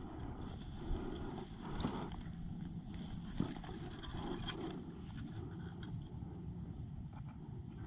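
Low rumbling wind noise on the microphone, with a few faint knocks and rustles.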